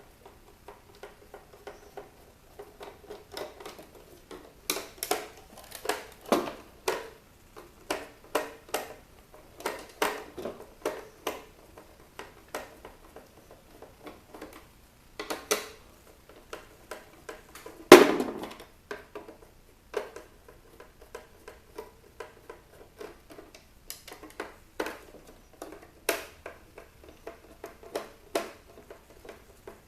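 Screws being undone and plastic and metal parts of a roof-mounted car movie player handled during disassembly: irregular clicks, taps and scrapes, with one louder knock about 18 seconds in.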